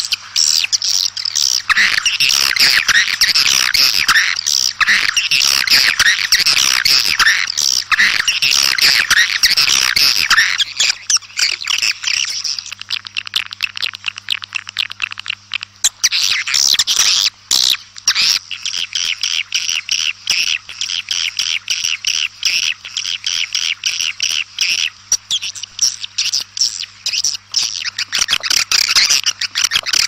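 Many swiftlets twittering and chirping densely, flock calls of the kind played to draw swiftlets in. The chorus thins for a few seconds around the middle, then thickens again. A faint steady hum runs underneath.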